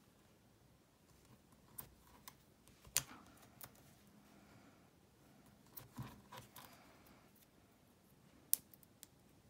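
Scattered light clicks and taps of a pointed craft tool and small paper pieces on the work mat as tiny foam adhesive dimensionals are picked off their sheet and pressed on; the sharpest clicks come about three seconds in and near the end.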